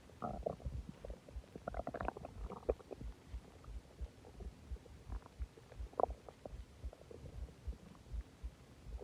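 Human stomach gurgling and rumbling after a large meal and a soda, as gas and fluid move through the gut. Irregular bubbly squelches come in clusters, busiest in the first three seconds, with a sharper gurgle about six seconds in.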